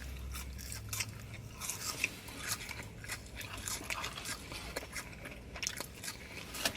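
Close-up eating sounds: a person biting and chewing fast food, with crunches and wet mouth clicks.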